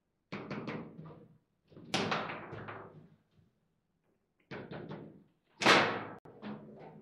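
Foosball table in play: the ball and the players' figures knocking and clacking as the rods are worked, in quick clusters of sharp knocks with a quiet gap midway. The hardest bang comes about two-thirds of the way through.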